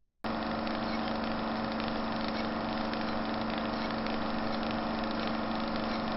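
The show's outro audio over the end card: a steady, dense drone with a held low note, starting suddenly about a quarter second in and running at an even level.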